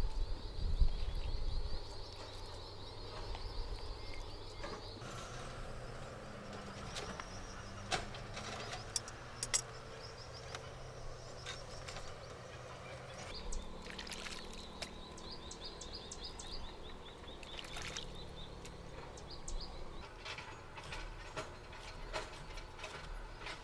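Outdoor woodland ambience: high chirping trills repeating in long runs, with scattered sharp clicks and knocks.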